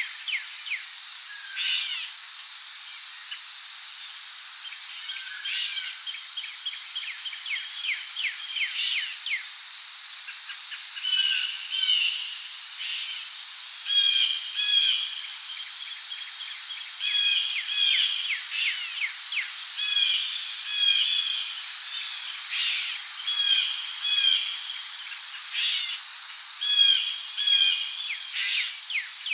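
Rainforest ambience: a steady high-pitched drone of crickets and other insects, with birds calling over it in quick chirps and repeated paired notes that grow more frequent and louder from about a third of the way in.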